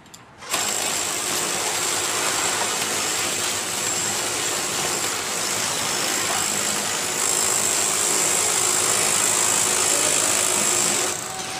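Power tools on a building site: an angle grinder cutting, throwing sparks, together with a hammer drill boring into a concrete wall. A loud, steady grinding noise with a high whine starts suddenly about half a second in and gets louder about seven seconds in.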